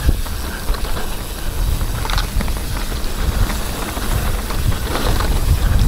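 Mountain bike riding fast down a wet, slippery muddy trail: a steady rush of tyre noise on mud and leaf litter with small rattles and clicks from the bike, over a low rumble of wind on the microphone.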